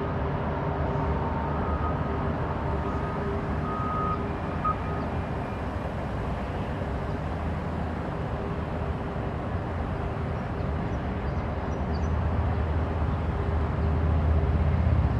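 Steady low mechanical rumble and hum of distant heavy machinery, with a faint whine in the first few seconds; the low hum swells near the end.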